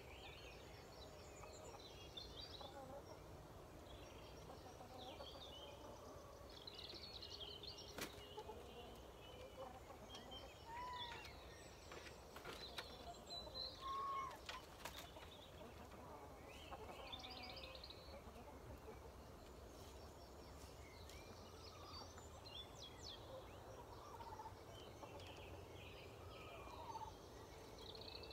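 Faint outdoor birdsong: scattered chirps and trills from small wild birds, with a few soft calls from chickens roosting in the trees and a handful of sharp faint clicks.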